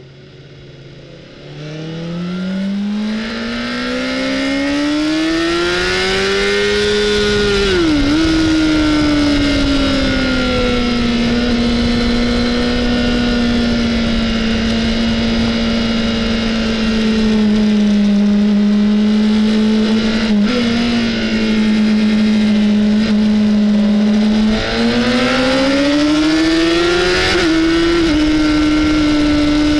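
Honda CBR600RR inline-four engine heard onboard at track speed over wind noise. The revs climb for several seconds and dip sharply about eight seconds in. The engine then holds a long steady drone and climbs again near the end.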